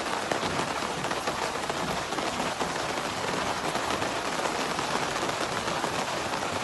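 Heavy rain pouring down: a dense, steady patter of drops hitting the ground.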